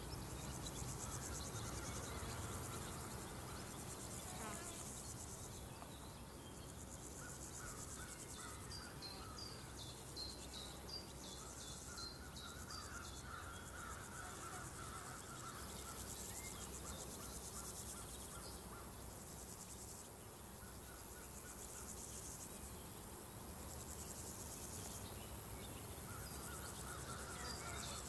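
Countryside ambience of crickets and other insects chirring in pulsing stretches, over a low rumble. A higher, thinner insect buzz comes in about halfway and cuts off shortly before the end. Scattered bird chirps and calls sound throughout.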